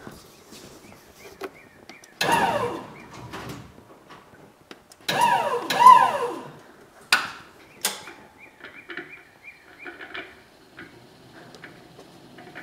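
Electric column lift's motor running in two short bursts with a gliding whine while it carries a parts washer strapped to its forks, followed by two sharp clunks and some light knocks.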